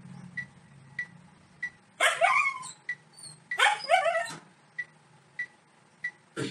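A dog giving two short, high whining yelps, about two seconds in and again a second and a half later, each sliding down in pitch. A faint short peep repeats about every half-second underneath.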